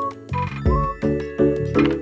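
Background music: a light keyboard tune with chords struck in a steady beat and a high chiming melody line.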